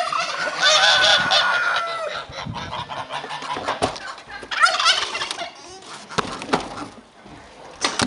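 Farmyard poultry calling: a long call from about half a second in, and another burst of calls a little past the middle, with a few sharp knocks later on.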